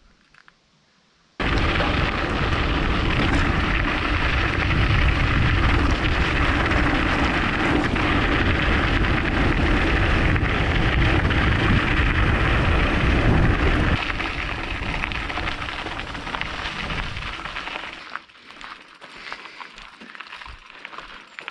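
Wind buffeting the microphone of a camera riding on a bicycle moving fast down a gravel forest track, a loud steady rushing. It starts abruptly about a second and a half in and dies away over a few seconds near the end as the ride slows to a stop, leaving quieter small rustling sounds.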